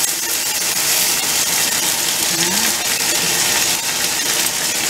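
Chicken breasts sizzling in a hot frying pan: a steady, even hiss.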